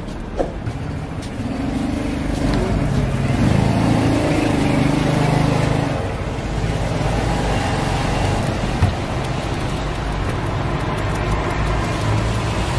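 A motor vehicle's engine running amid street traffic noise, swelling from about two seconds in and easing off around six seconds, with a steady low rumble throughout.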